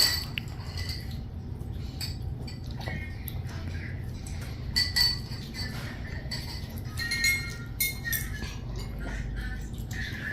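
Cutlery clinking against plates and dishes during a meal: scattered light clinks with brief ringing, a few grouped together about five seconds in and again near eight seconds, over a low steady background hum.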